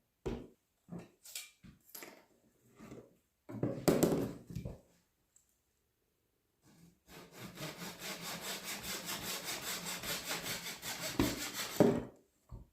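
A handsaw cutting through a wooden dowel, in quick, even rasping strokes about four or five a second, after a few knocks as the piece is set in place. The sawing stops near the end as the cut goes through.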